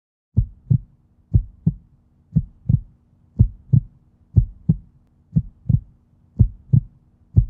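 Heartbeat sound effect: low double thumps, lub-dub, about one pair a second, over a faint steady tone, opening the video's music track.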